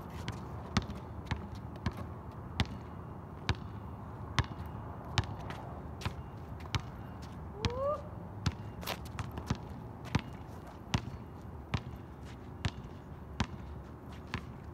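A basketball bouncing on an outdoor asphalt court as players dribble, a sharp smack roughly once a second, over a steady background hiss. There is one short rising squeak about eight seconds in.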